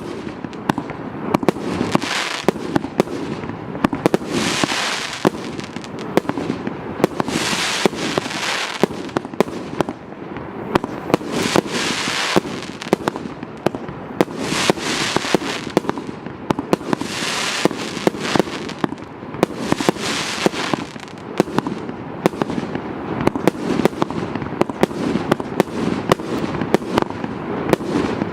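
A 200-shot, 1.2-inch firework cake firing continuously: a rapid, unbroken run of sharp launch thumps and bursts, with a rush of hissing noise every two to three seconds.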